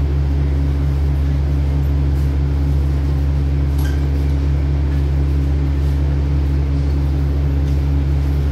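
Steady low diesel hum from a passenger train standing still, its engine idling with no change in pitch.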